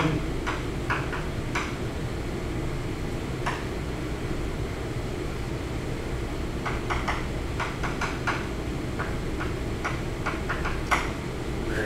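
Chalk writing on a blackboard: short taps and strokes of the chalk against the board, a few near the start and a quicker run in the second half, over a steady room hum.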